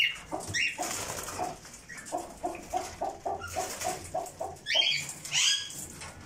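Caged birds calling in a breeding shed: two fast runs of short low notes, about five a second, with a few sharp rising squawks over them, the loudest about five seconds in.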